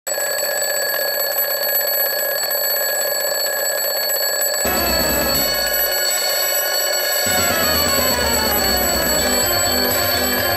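Alarm clock ringing steadily, as a sound effect for waking a sleeper. A lower, melodic part joins about halfway through and fills out near the end.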